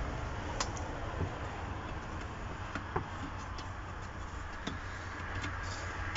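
Scattered light clicks and taps of wires and plastic and metal parts of an opened fan heater being handled, a few times, over a steady low hum.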